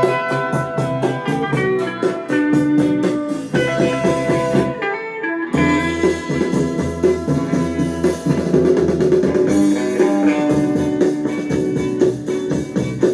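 Recorded music with guitar and drums, played back through a homemade ECC85 valve RIAA phono preamplifier on test. The music briefly thins out about five seconds in, then carries on with a fuller bass.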